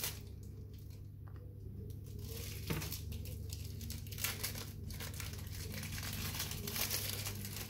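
Thin plastic film crinkling as individually wrapped cheese slices are peeled out of their wrappers, the crackle growing busier in the second half, with a couple of light clicks.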